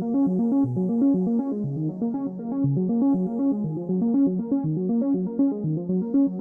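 Background music: electronic keyboard or synthesizer music with a quick, repeating pattern of notes.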